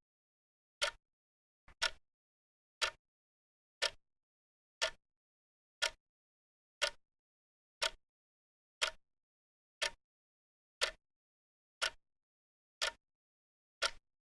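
Clock ticking, one sharp tick each second with dead silence between, about fifteen ticks in all. A faint extra click comes just before one tick near the two-second mark.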